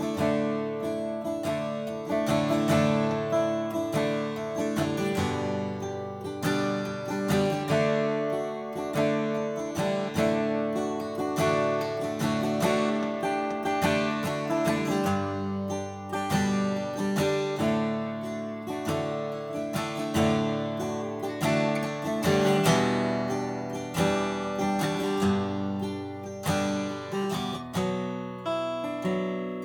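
A 2016 Martin D-1 Authentic 1931, a twelve-fret steel-string acoustic guitar, played solo with strummed chords and picked notes, one attack after another, with no pause.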